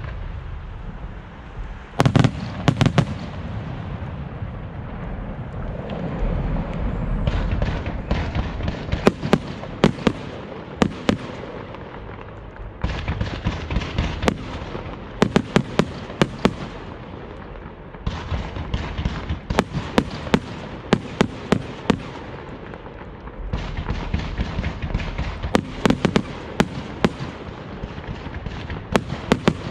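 Fireworks display by Pirotecnia Ricardo Caballer: aerial shells and salutes bursting in clusters of sharp bangs every few seconds, over dense continuous crackling and rumbling from the show.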